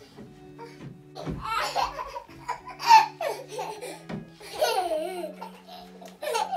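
Small children laughing and squealing in several bursts, the loudest about three seconds in, over soft background music.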